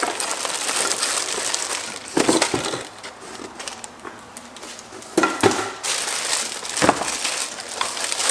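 A clear plastic bag crinkling and a cardboard box rustling as a bagged part is lifted out and handled. The crackles come irregularly, with louder bursts about two, five and seven seconds in and a quieter stretch in the middle.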